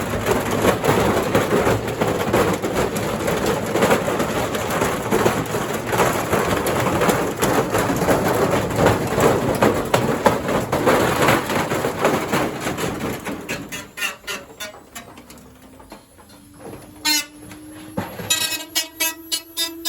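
Indesit IWDC6105 washer dryer drum spinning hard with a load of bricks inside, a loud continuous clattering and banging of bricks against the drum and cabinet. About 13 seconds in it dies away as the drum slows, leaving scattered clanks and a faint rising tone near the end.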